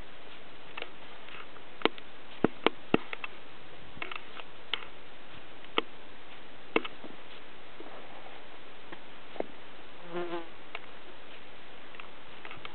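Steady hiss broken by scattered sharp clicks, most of them in the first half, and a short buzz about ten seconds in.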